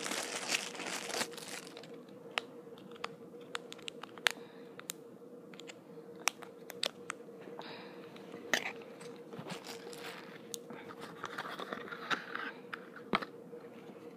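Packaging in a box being rummaged through by hand close to the microphone: crinkling and rustling with scattered sharp clicks and knocks. A faint steady hum runs underneath.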